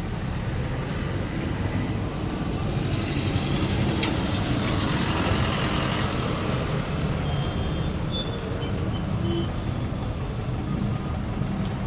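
Steady motor-vehicle rumble, with a sharp click about four seconds in and a few short high beeps in the second half.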